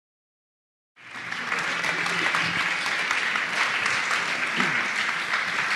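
Audience applauding. It starts suddenly about a second in, after a moment of silence.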